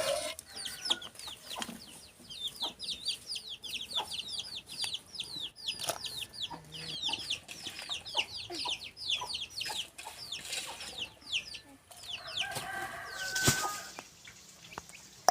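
A bird chirping in a long, quick run of high, downward-slurred notes, several a second, that stops about twelve seconds in. Shortly after comes a brief clatter and one sharp knock, the loudest sound here.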